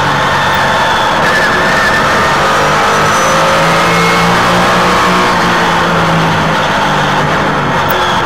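Trans Am race car engine heard from on board, running hard at a steady high pitch with small dips and rises in revs through the corners.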